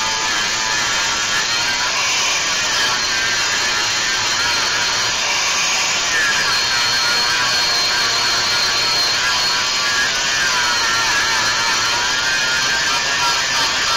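Angle grinder with a flat disc grinding steel rivet heads down flush on a truck frame, running continuously, its whine dipping and recovering in pitch as it is pressed into the metal.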